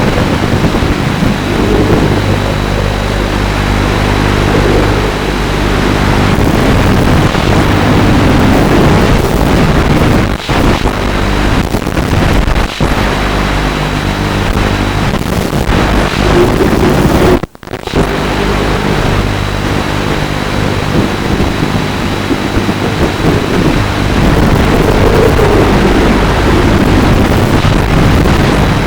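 FPV quadcopter's motors and propellers running, a loud continuous buzz mixed with rushing air, its pitch swelling and falling repeatedly as the throttle changes. The sound briefly cuts out about two-thirds of the way through.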